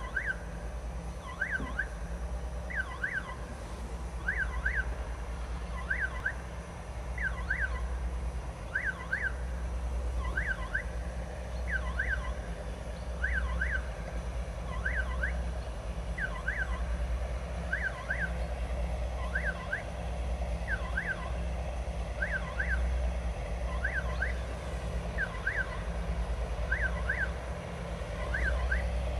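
Low, steady rumble of a 2TE10MK twin-unit diesel locomotive approaching. Over it, a high double chirp repeats evenly about every one and a half seconds.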